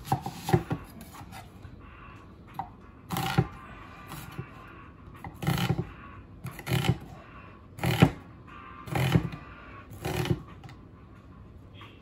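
Chef's knife chopping a white onion on a wooden cutting board: a series of short knocks and crunches as the blade cuts through and strikes the board, about one stroke a second.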